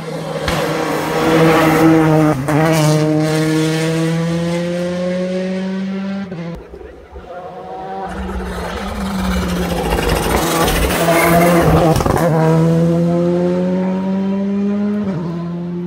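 Two rally cars, one after the other, accelerating hard out of tight bends. Each engine climbs steadily in pitch with brief gear-change breaks. The first fades about six seconds in, the second builds soon after and cuts off suddenly near the end.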